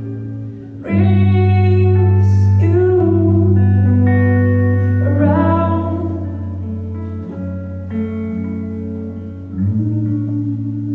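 Live band music with guitar over a deep, held bass tone, swelling sharply about a second in and again near the end.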